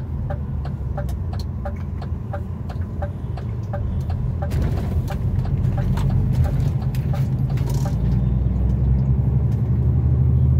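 Truck's turn-signal indicator ticking steadily, about two to three clicks a second, over the low hum of its diesel engine, heard inside the cab. The engine grows louder from about four seconds in.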